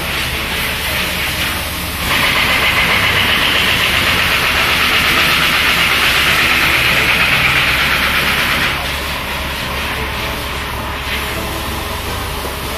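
Steady machine noise with a low hum, typical of an engine or machinery running in a workshop. A hiss rises over it about two seconds in and drops back several seconds later.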